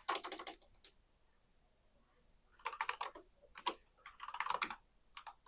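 Computer keyboard typing in short bursts of quick keystrokes, a login being entered, with a pause of nearly two seconds about a second in.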